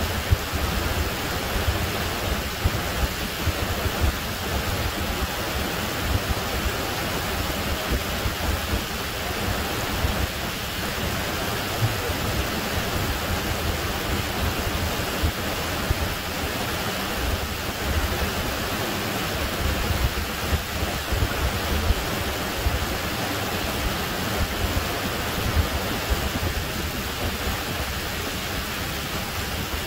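Steady rush of a small waterfall pouring down a rocky creek cascade, an even hiss of white water with a low rumble beneath.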